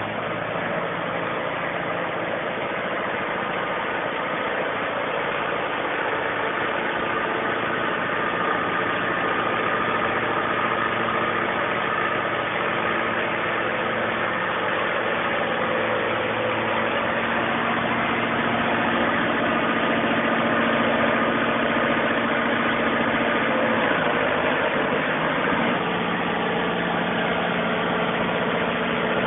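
Deutz BF4L 913 air-cooled, turbocharged four-cylinder diesel of a Kershaw 75x Sky Trim brush cutter idling steadily. Late on, its speed sags briefly and then recovers.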